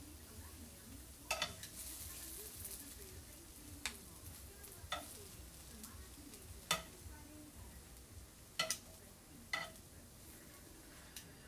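Metal tongs clicking against a pan and baking dish as cooked vegetables are lifted out and laid over the eggplant: about six sharp clicks, irregularly spaced a second or two apart, over a faint frying sizzle.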